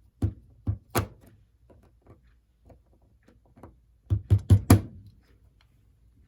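Sharp taps of a screwdriver knocking a small model-train motor's back plate into place: three taps in the first second, then a quicker, louder run of about five taps around four seconds in.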